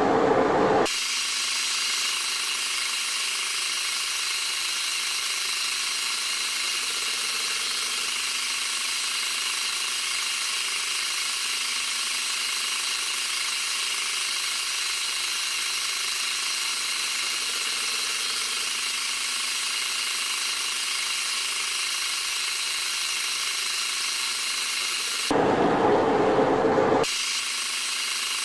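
Metal lathe running steadily while machining steel, a high whine with several steady tones. Near the end a louder, lower running sound briefly takes over, then the steady whine returns.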